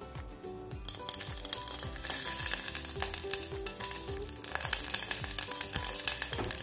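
Vegetable oil sizzling and crackling as it heats in a nonstick saucepan. The hiss starts about a second in and holds steady.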